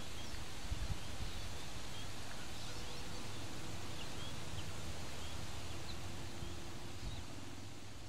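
Outdoor ambience: wind gusting on the microphone, with faint short bird chirps scattered through, growing quieter near the end.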